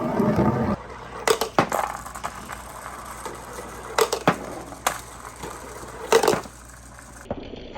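Balls rolling down a marble run: a dense rolling rumble for about the first second, then scattered sharp clacks as balls strike the track, about six over the following seconds.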